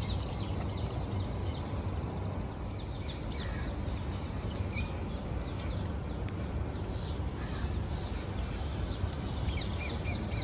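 A flock of birds calling: many short, high, falling chirps, more of them near the end, over a steady low street rumble.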